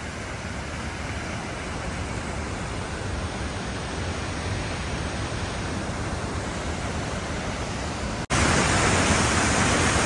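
Rushing water of the Keila-Joa waterfall, a steady even noise that becomes suddenly louder about eight seconds in.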